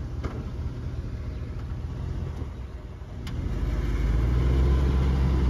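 GMC Sierra Z71 pickup's V8 engine and exhaust rumbling as the truck drives in circles, growing louder past the halfway point as it comes close. One sharp click about three seconds in.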